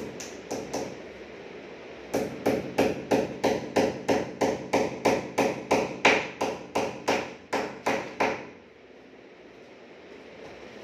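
A small hammer tapping at a seam of PVC wall panels, fastening the panel. A couple of light taps come first, then a fast, even run of about eighteen sharp strikes, roughly three a second, that stops suddenly.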